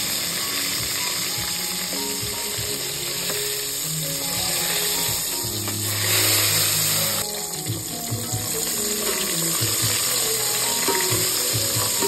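Fish pieces frying and sizzling in hot oil in a steel pot, with a metal spatula scraping the pot as they are turned; the sizzle swells for about a second around six seconds in.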